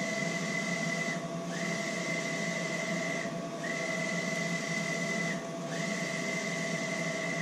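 Wide-format inkjet printer running: a steady whine as the print-head carriage sweeps across, breaking off briefly about every two seconds at each turn, over a steady hum.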